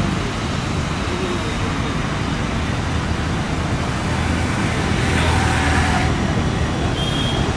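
Steady engine rumble with a low hum.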